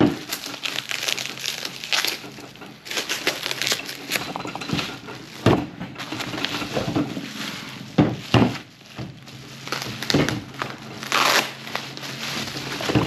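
Bubble wrap crinkling and crackling as it is unwrapped and pulled off chrome motorcycle backrest parts, in irregular handfuls with scattered sharp crackles and a louder burst of rustling near the end.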